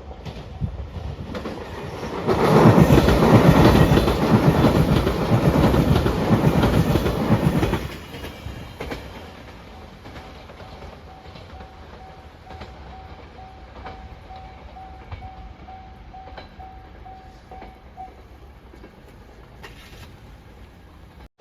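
A JR Shikoku 8000 series Shiokaze limited express electric train passes over a level crossing at speed for about five seconds, its wheels clattering over the rail joints. As it fades, the crossing's warning bell keeps ringing in a steady repeating ding and stops a few seconds before the end.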